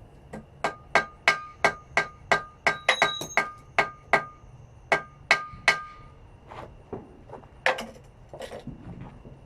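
Hand hammer striking a small piece of hot meteorite iron on an anvil, forging a sword's habaki: a steady run of about three ringing blows a second that slows to a few scattered blows after about six seconds.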